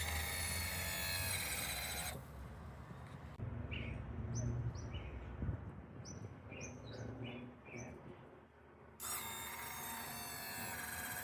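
A small electric motor whining for about two seconds, then again for about two seconds near the end, with birds chirping in between.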